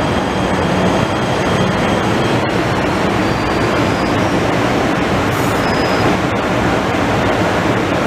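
PATH PA5 subway train pulling into an underground station and slowing, with a steady loud rumble of wheels and traction motors. A couple of faint, brief high squeals come from the wheels or brakes midway.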